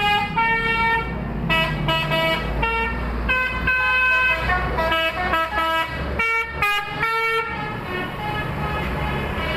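Basuri telolet bus horn playing a quick tune of short pitched notes that change several times a second, stopping about seven and a half seconds in, leaving a steady low rumble.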